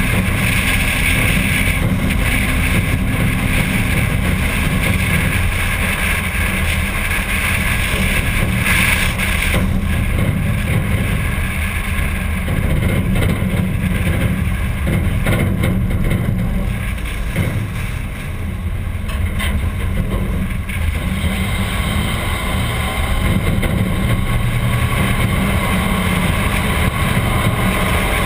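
1951 Packard driving at road speed: a steady rumble of its straight-eight engine and road noise, with wind buffeting the microphone.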